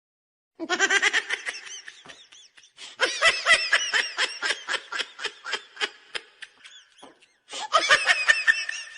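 High-pitched laughter sound effect: rapid runs of 'ha-ha' pulses, about four a second, coming in three bouts after a brief silence.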